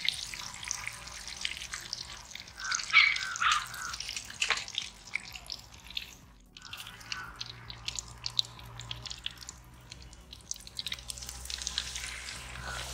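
Hot oil crackling and spitting in an iron kadai as whole batter-coated chickens deep-fry, with many irregular small pops.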